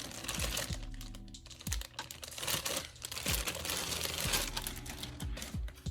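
Plastic packaging crinkling and rustling, with irregular small clicks and taps, as a tripod stand is unwrapped and handled.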